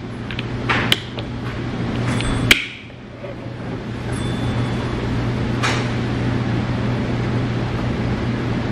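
Restaurant room noise: a steady low hum, with a few sharp clicks of tableware in the first three seconds, the loudest about two and a half seconds in.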